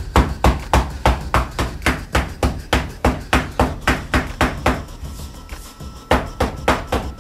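A stiff-bristled tapping brush (uchibake) struck again and again against paste-backed paper on a mounting table: a steady run of dull taps at nearly four a second, a brief pause about five seconds in, then a few more strokes. The tapping presses the backing paper into the paste so that it bonds to the work.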